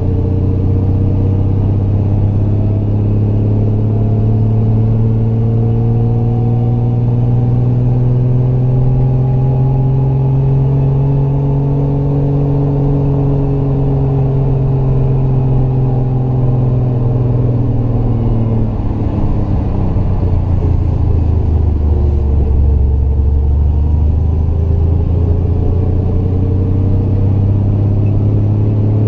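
Triumph GT6 Mk2's two-litre straight-six engine pulling uphill, heard from inside the car. Its note rises and falls slowly with the road, drops noticeably lower about two-thirds of the way through, then climbs again near the end.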